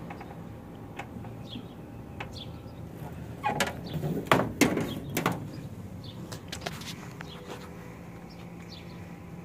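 Knocks and rattles from the body of a 1929 Ford Model A being handled: a quick run lasting about two seconds, starting about three and a half seconds in. A few faint bird chirps sound over a steady outdoor background.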